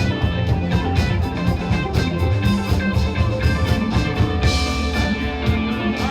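Rock band music with guitar, bass and a drum kit playing steadily; a bright cymbal-like wash swells about four and a half seconds in.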